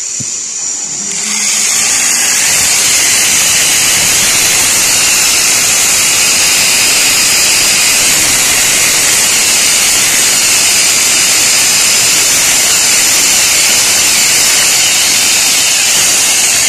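Loud, steady whirring hiss of a running machine, such as a power tool. It sets in about a second in, holds at one level without a beat, and fades at the end.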